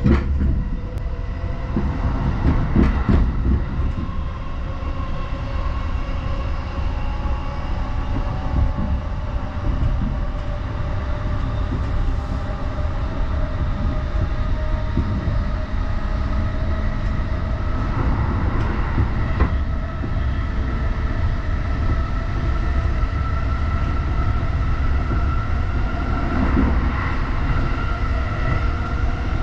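Inside a Chuo Line electric commuter train running at speed: a steady rumble of wheels on rails with a steady whine above it. A few clicks over rail joints come in the first few seconds.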